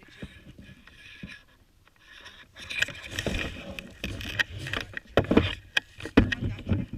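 Scraping and rustling close to the microphone, with irregular knocks and clicks, growing loud from about two and a half seconds in.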